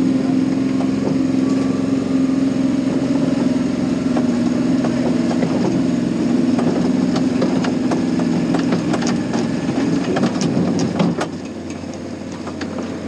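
Paintball tank's engine running steadily, heard from inside its wooden turret. Scattered clicks and knocks come in the second half, and the engine note drops away about eleven seconds in.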